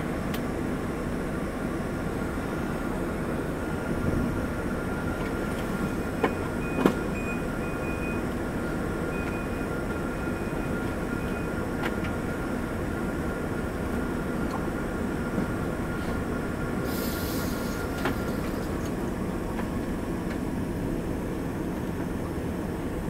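Cabin noise of an Embraer ERJ145 taxiing after landing: a steady rumble from its rear-mounted turbofans and its wheels rolling over the taxiway, with a thin steady whine that stops near the end. A few sharp knocks come about four to seven seconds in, and a short hiss comes near the end.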